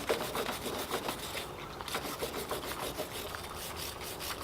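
A small wire brush scrubbing corrosion off a battery cable terminal in quick back-and-forth strokes, several a second.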